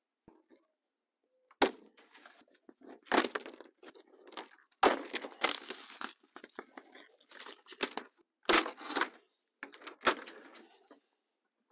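Clear plastic stretch wrap being torn and pulled off a cardboard-covered pallet load, in a string of irregular crinkling rips. It starts about a second and a half in and stops shortly before the end.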